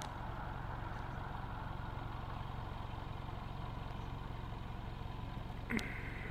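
Vehicle engine idling with a steady low hum, and a short rising sound near the end.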